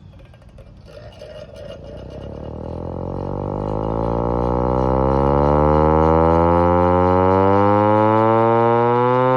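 Vixen Horns VXS-1200M hand-crank siren being cranked up from rest: a low wail that rises steadily in pitch and grows louder. It reaches full loudness about two-thirds of the way through and holds there while the pitch still creeps upward.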